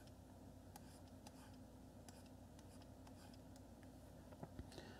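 Near silence: faint room tone with a low steady hum and scattered faint clicks, a few slightly louder near the end.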